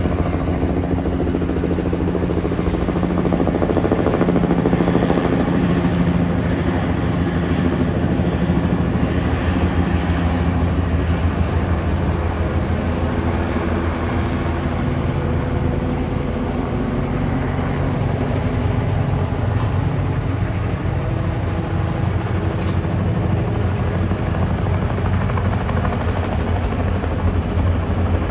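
Helicopter running close by: a loud, steady, rapid beating of the rotor over the engine's noise.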